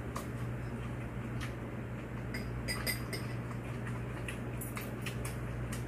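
Eating at a table: scattered light clicks and clinks of utensils on dishes over a steady low hum.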